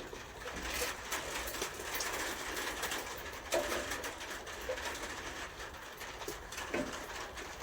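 Scattered light clicks and knocks of metal parts and fixings being handled while a wood chipper is assembled by hand, with a bird cooing in the background.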